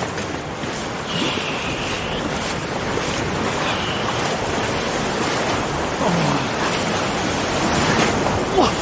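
Small sea waves breaking and washing up over sand at the water's edge: a steady rush of surf.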